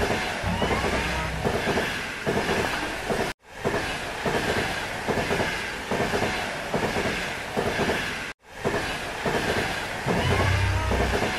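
A train running, its wheels clacking over rail joints in a steady rhythm. The sound cuts out abruptly twice, about three and a half and eight and a half seconds in, and comes straight back each time.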